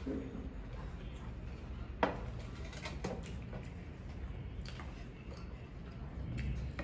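Quiet eating at the table: hands working biryani rice on metal plates and chewing, with one sharp clink about two seconds in and a few lighter clicks later, over a low steady hum.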